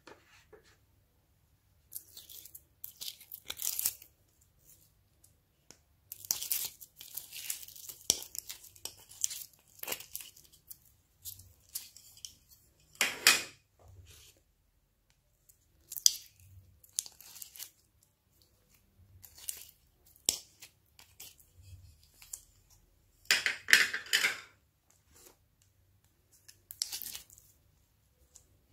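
Glossy slime handled in a glass dish: pieces pressed down, pulled and stretched, making sticky crackling and squelching sounds in short irregular bursts with quiet gaps between. The loudest bursts come about halfway through and again near the end.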